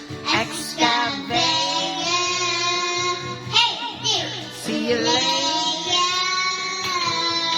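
A child singing long held notes, without clear words, over the song's backing music.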